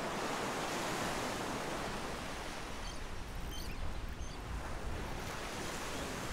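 Ocean surf breaking and washing up the beach, with wind rumbling on the microphone in the middle.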